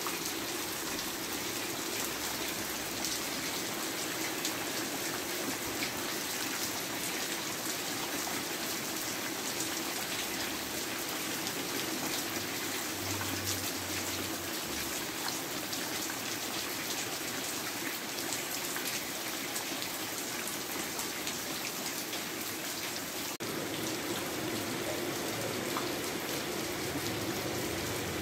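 Steady rain falling on tiled roofs and wet concrete, with water running off the roof eaves.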